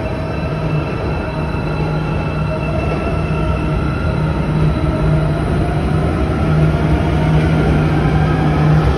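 Electric metro train pulling out of a station: a steady rumble of wheels on rails, with a motor whine that climbs slowly in pitch as the train gathers speed.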